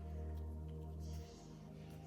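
Soft background music with steady held notes; a low hum underneath drops away a little past halfway.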